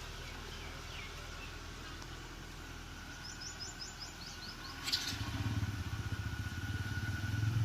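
A low steady hum, then a quick run of high bird chirps a little past the middle. About five seconds in a vehicle engine comes in close by, running with a fast low pulsing and clearly louder than before.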